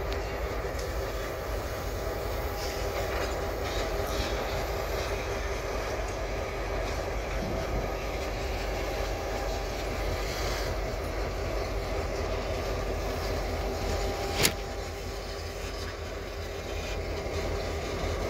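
Two diesel locomotives running past with a steady engine hum, then loaded flatcars rolling by on the rails. A single sharp clank stands out about three quarters of the way through.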